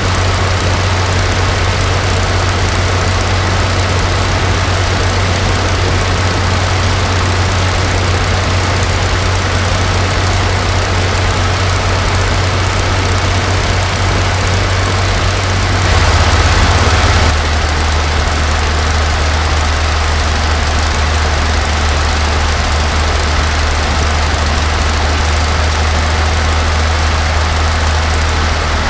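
Freshly rebuilt Rolls-Royce Merlin XX V12 aero engine running steadily on a test stand, turning its propeller. About sixteen seconds in there is a brief louder surge, after which the engine settles to a slightly lower pitch.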